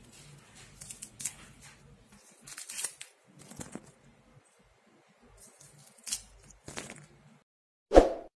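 Katuk leaves being plucked and torn from their stems by hand: a scatter of short, crisp rustling and snapping crackles. Near the end there is a single short, loud thump.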